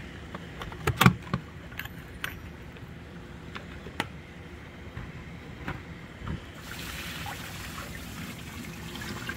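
Sharp clicks and knocks of hands on a plastic storage-tote reservoir and its wooden float-marker stick, the loudest about a second in. About two-thirds of the way through, a steady hiss of water pouring into the tote begins: a drained hydroponic bucket emptying into the reservoir.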